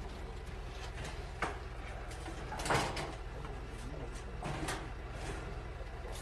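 Room noise: a steady low hum with a few scattered knocks and clicks, the loudest about three seconds in.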